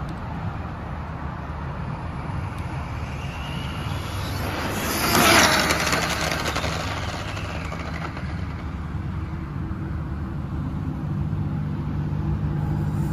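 Arrma Felony 1/7 RC car on a TP Power 4050 3200Kv brushless motor making a full-throttle speed pass: its motor whine and tyre noise rise as it approaches, are loudest about five seconds in, then drop in pitch and fade as it goes by. Steady traffic noise underneath.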